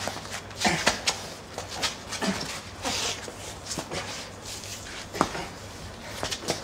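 Two men grappling on the ground: scuffling of clothes and bodies against the pavement, with strained grunts and short gasps of effort.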